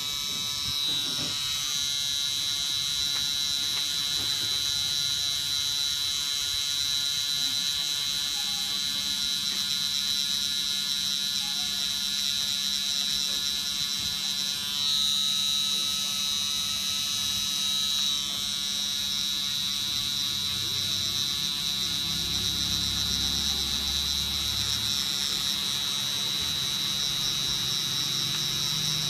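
Cosmetic tattoo pen (permanent makeup machine) running with a steady high-pitched whine.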